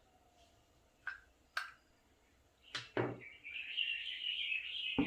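Plastic clicks and knocks of PVC pipe parts being handled as the air rifle is taken apart, then a rasping scrape lasting about two seconds as the coil spring is drawn out of the PVC pipe.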